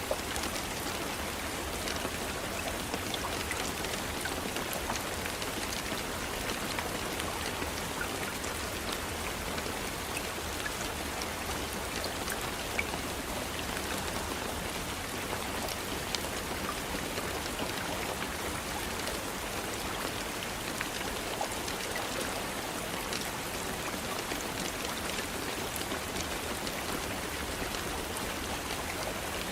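Steady rain falling, an even hiss with many individual drops ticking on surfaces.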